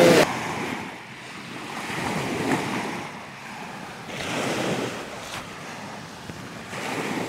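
Lake waves breaking on a beach, surging and falling back every two seconds or so, with some wind.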